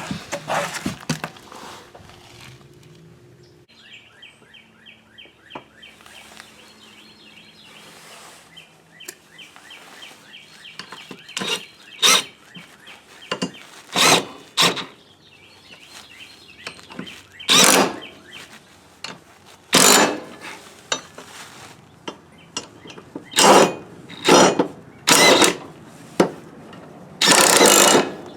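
Packed grass buildup being scraped and knocked off the underside of a lawn mower deck, in separate sharp strokes that come more often in the second half.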